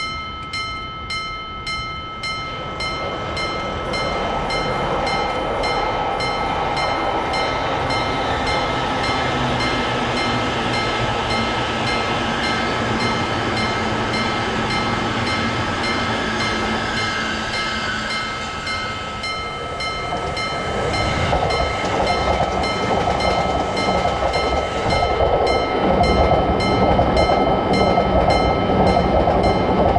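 Japanese railroad crossing's electronic warning bell ringing steadily, about two strikes a second, while a train runs through the crossing. The train noise builds from about three seconds in and eases briefly around twenty seconds; then a second, louder pass follows to the end.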